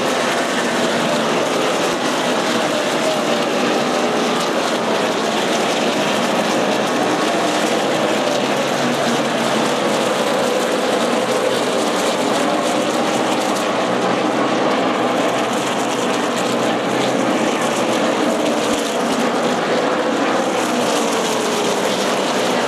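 A field of NASCAR Sprint Cup stock cars' V8 engines running at speed around an oval. The blended engine noise is loud and steady, with pitches drifting up and down as cars go past.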